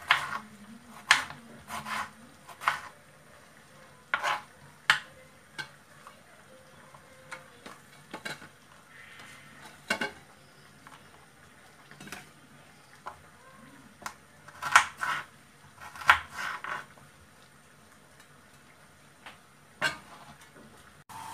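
Kitchen knife chopping on a wooden cutting board: a dozen or so sharp, irregular chops, some in quick pairs, with long pauses between them.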